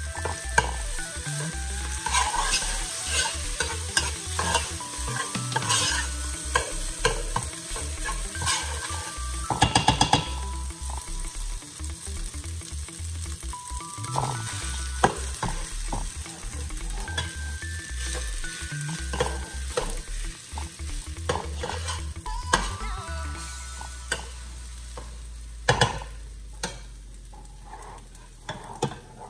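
Cooked rice being stirred into onions and garlic frying in oil, with a steady sizzle under a metal spoon scraping and clicking against a ceramic-coated pot. There is a quick run of knocks about ten seconds in and a few single knocks later, and the sizzle fades near the end.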